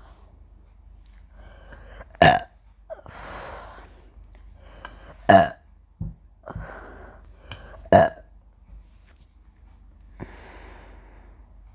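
A woman burps three times after chugging a litre of pomegranate juice. The burps are short and loud, about three seconds apart, and each is followed by a softer breath.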